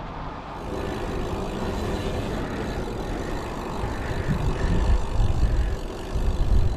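Wind buffeting the action-camera microphone on a moving bicycle, over a steady rush of tyre and road noise. The low, gusty rumble grows stronger in the second half.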